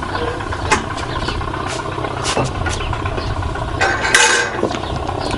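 Engine running with a steady low rumble, with a few sharp knocks and a short noisy burst about four seconds in.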